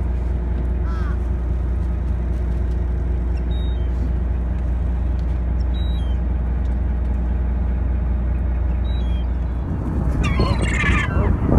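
Wind buffeting the phone's microphone over a steady low rumble, with a few faint short bird calls. Near the end, gulls start calling loudly overhead, wavering squawks that rise and fall.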